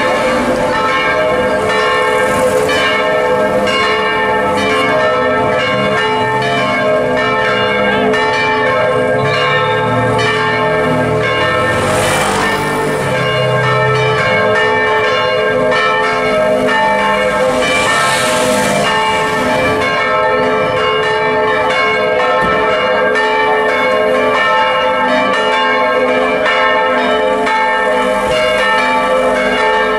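Several large church bells swinging in the tower and ringing together in a continuous peal, their strokes overlapping into a dense, steady clangour.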